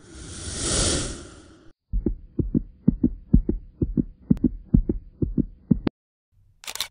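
A whoosh that swells and fades over the first second and a half, then a heartbeat sound effect: paired lub-dub thumps, about two pairs a second, over a faint steady hum, cutting off about six seconds in. A sharp click follows near the end.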